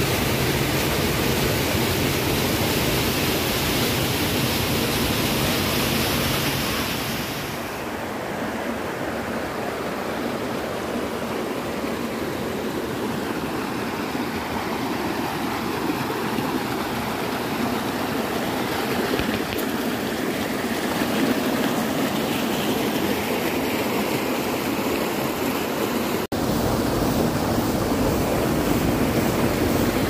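Water rushing steadily down a small rocky waterfall. About seven seconds in, the hiss thins to the lower rush of the stream flowing between boulders. Late on there is a split-second break in the sound.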